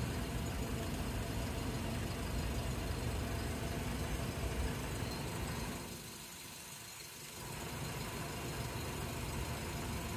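Steady low rumbling noise with no clear pitch, like a running engine or machinery. It drops away for a second or two past the middle, then comes back.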